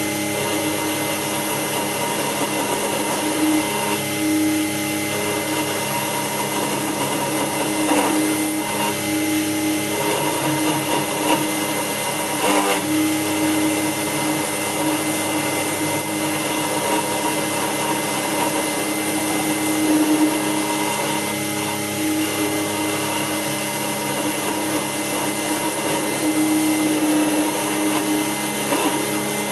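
Small electric motor of a lathe-mounted milling spindle running steadily with a steady whine, driving a 4 mm end mill through a toothed belt as it cuts a slot into a brass piston, with the cut making small swells in the sound.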